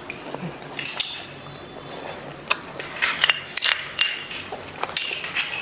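Metal spoons clinking and scraping against small ceramic bowls as several people eat, in irregular sharp clinks.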